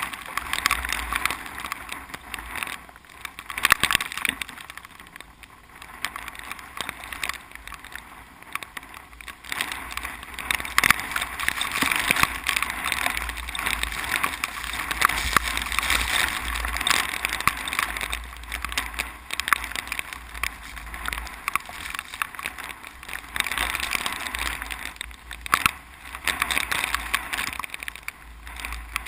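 Strong typhoon wind gusting across a rice paddy, rising and falling every few seconds, with a low rumble of wind on the microphone and a crackly rustle of rice plants tossing.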